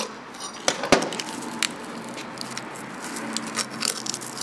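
Screwdrivers prying off the worn carbon seal of a 1985 Rolls-Royce Corniche water pump, the press-fit seal breaking up with a series of sharp cracks and crunches, the loudest about a second in.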